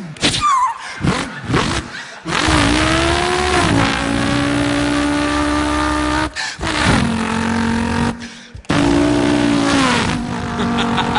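A man imitating racing car engines with his voice: a buzzing engine note that holds, rises and drops in pitch like revs and gear changes, broken by a few short pauses.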